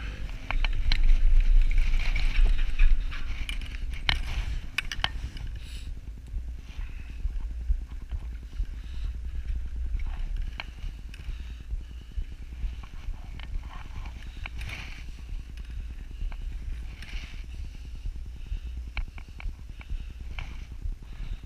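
Chairlift ride: a steady low rumble with scattered clicks and rattles, the rumble and clacking loudest for the first few seconds as the chair passes under a lift tower's sheave wheels, then settling to a quieter rumble with occasional small clicks.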